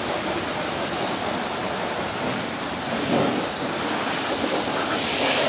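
Pressure washer jet spraying water onto a car's wheel and into its wheel arch, a steady hiss of water.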